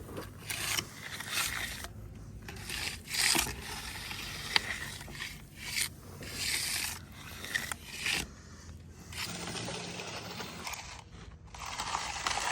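Stiff-bristle concrete broom dragged in repeated scraping strokes, about one a second, across a fresh concrete surface to give it a broom finish.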